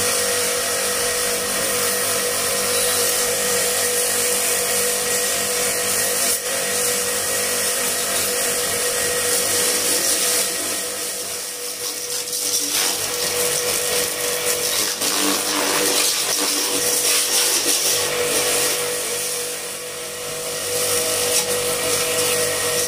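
Starq W3A electric pressure washer running, its motor and pump giving a steady hum under the hiss of the water jet striking the motorcycle's wheel and frame. The sound drops briefly about halfway through and again near the end.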